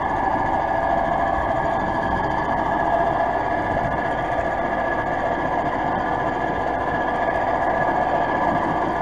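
Model train locomotive running along the track: a steady whirring hum from its small electric motor and wheels on the rails, with no change in speed.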